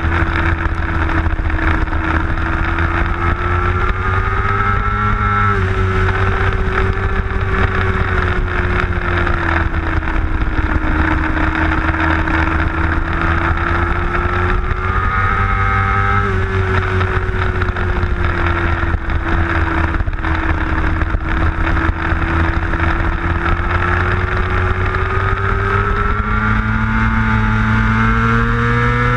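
Middleweight superbike engine heard on board at racing speed, under heavy wind rush. The engine note sinks and rises through the corners, drops sharply twice, and climbs under full throttle near the end.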